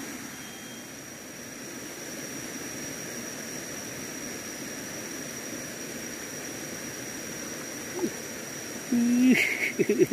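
Steady rainforest river ambience: an even hiss with a constant high thin tone. About nine seconds in, a louder short held call sounds, followed by a run of quick pulsing sounds.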